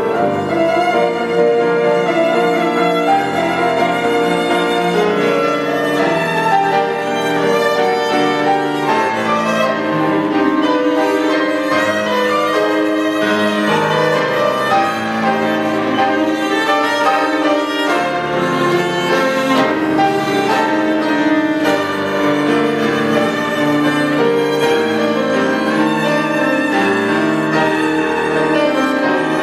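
Cello and grand piano duet: the cello bows a melody of held notes over the piano's accompaniment.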